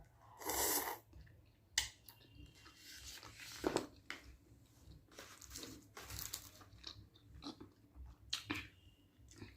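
A person chewing plain, unsalted Korean rice cake close to the microphone: irregular wet mouth sounds with scattered sharp clicks.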